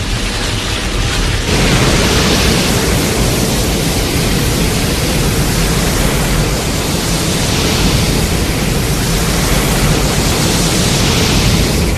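Film sound effect: a loud, steady rushing noise with no clear pitch or rhythm, growing fuller and brighter about one and a half seconds in.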